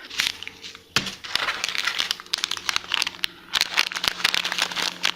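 Crinkling and crackling of MRE component packets being handled, with a sharp click about a second in.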